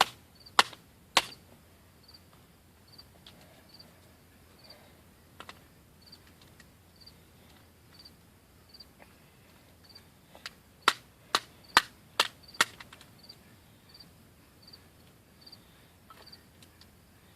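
Sharp hammer blows on a phone: three quick strikes at the start, then a rapid run of about six strikes a little past the middle. Underneath, a cricket chirps at an even pace.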